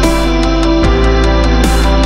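Electronic background music with a steady, fast beat.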